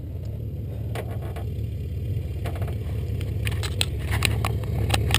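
Single-engine tow plane's piston engine running at taxi power, a steady low drone that grows gradually louder as it approaches, with a few light clicks over it.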